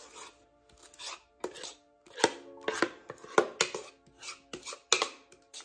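Spatula scraping thick chocolate cake batter out of a mixing bowl into a metal cake pan, in short quick strokes about two a second, over soft background music.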